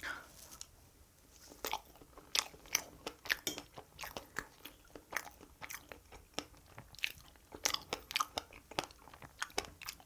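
Chewing and biting of strawberry cake, heard as a quick, irregular run of mouth clicks and smacks.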